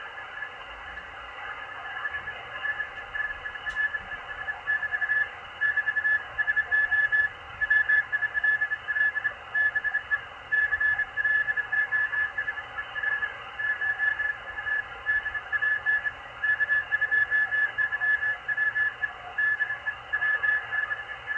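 Morse code (CW) signal on the 20-metre amateur band from a Machilite DSP SDR receiver: a single whistling tone keyed on and off in dots and dashes over steady receiver hiss.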